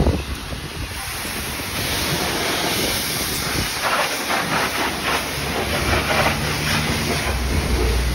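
Self-serve car wash high-pressure wand spraying water: a steady, loud hiss that builds about a second in and holds, with a low hum joining near the end.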